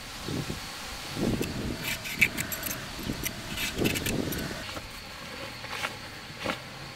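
Light metallic clinks and scrapes of kitchen utensils, coming as scattered short strokes, with a few soft thuds.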